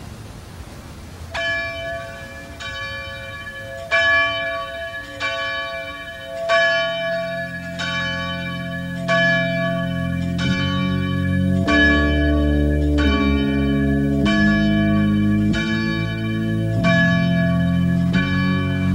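Church bell ringing in a steady run of evenly spaced strokes of the same pitch. Deeper tones join about six seconds in and shift pitch with the strokes.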